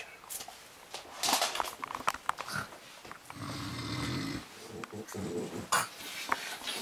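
A sleeping person snoring: one long snore about halfway through and a shorter one a second later, with soft rustling and clicks before it.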